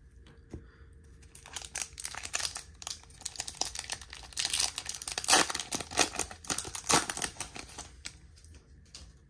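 Foil trading-card pack wrapper (Topps baseball hobby pack) torn open at its crimped seal and crinkled by hand: a dense run of crackling that starts about a second in, is loudest in the middle and dies down near the end.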